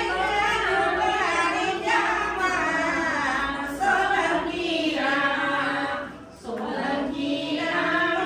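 A group of women singing a devotional song together in a chant-like melody, voices only with no instruments; the singing dips briefly about six seconds in.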